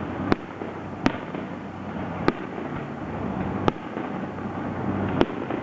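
Aerial fireworks shells bursting: five sharp bangs at uneven gaps of about one to one and a half seconds, over a steady background of noise.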